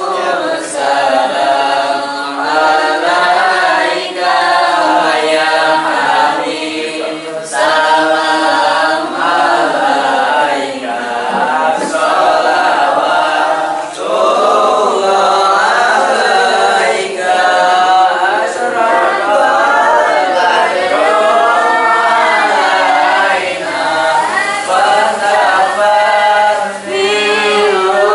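A choir singing without instruments: several voices in a continuous, flowing sung melody.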